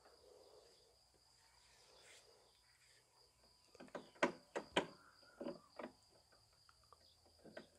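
A handful of sharp clicks and knocks, bunched about four to six seconds in, from lawn mower parts being handled and fitted during assembly. Behind them is a faint, steady, high insect-like tone.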